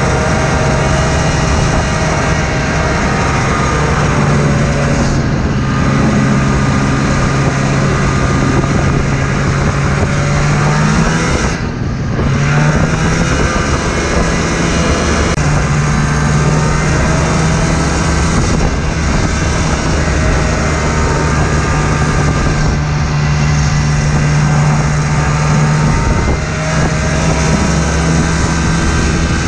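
Snowmobile engine running steadily at cruising speed across a frozen lake. The throttle eases off and back on about twelve seconds in.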